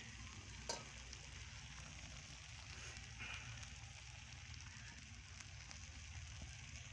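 Faint, steady sizzle of bamboo shoots cooking in a pan, with a single light click about a second in.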